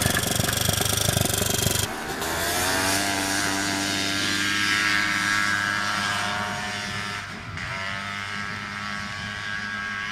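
Honda FL350 Odyssey buggy's single-cylinder four-stroke engine running hard across open ground, its pitch rising and falling with the throttle. For the first two seconds it is a loud, rough noise close to the microphone, then it cuts abruptly to a clearer, more distant engine note.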